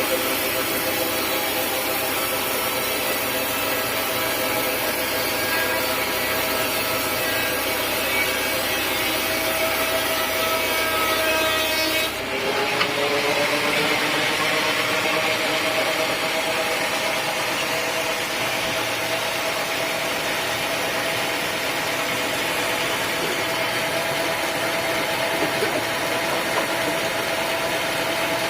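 Sawmill saw running and cutting teak wood, a steady whine over a rasping noise. About twelve seconds in the sound changes abruptly and a tone rises in pitch for a few seconds before settling.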